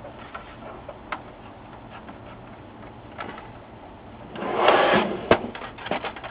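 HP LaserJet 4P's plastic cover being swung shut: a short scraping rush a few seconds in ending in a sharp snap as it closes, with small plastic clicks and taps before and after.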